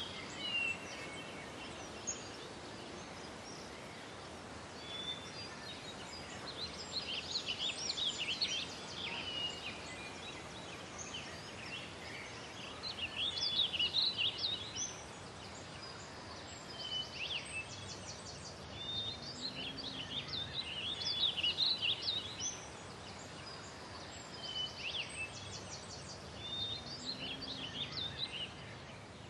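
Several wild songbirds chirping, whistling and trilling in bursts with short gaps, over a steady background hiss.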